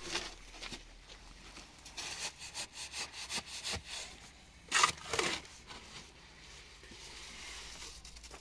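Repeated scraping and rubbing strokes of earth or sand being worked by hand or with a tool, several a second, with a louder burst about halfway through.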